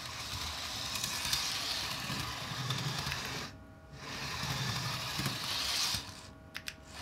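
HO-scale PCC streetcar model running on its track: a small electric motor whirring with wheels rattling on the rails. It stops briefly about halfway through, then runs again.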